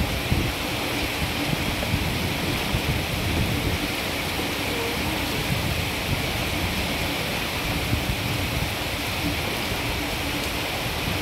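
Steady rush of heavy rain and fast-flowing floodwater running down a street, an even hiss with no breaks.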